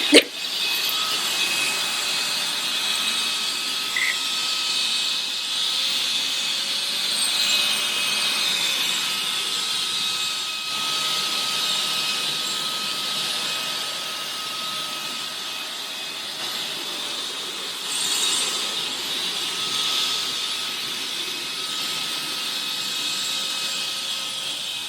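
Cordless stick vacuum running steadily with a high motor whine, with a sharp click at the very start.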